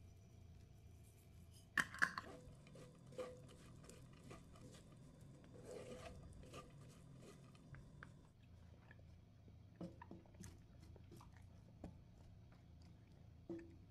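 Two wooden spatulas tossing and stirring sticky stir-fried anchovies in a pan: soft rustling and scraping with scattered sharp clicks of wood on the pan, the loudest a pair about two seconds in.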